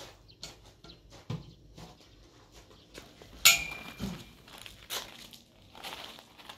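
Scattered crunching steps and small knocks on gravel, with one sharp metallic clank about three and a half seconds in that rings briefly.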